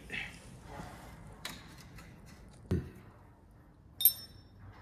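Scattered clicks and knocks of metal tools and engine parts being handled during a piston install. A dull thud comes a little under three seconds in, and a sharp metallic clink rings briefly about four seconds in.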